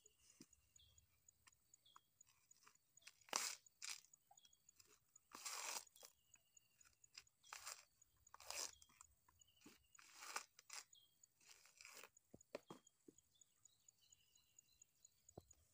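Dry coconut husk fibre crunching and scraping in irregular bursts as husked coconuts are handled and pulled at by hand.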